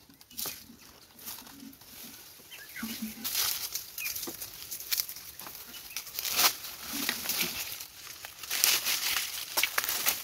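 Dry coconut palm fronds and fibrous leaf-base sheaths rustling and crackling in irregular bursts as a climber grips and works among them in the crown. The loudest crackles come about six seconds in and again near the end.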